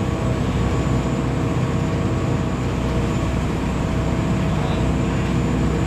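Steady engine drone: a low hum with several steady tones above it, unchanging throughout.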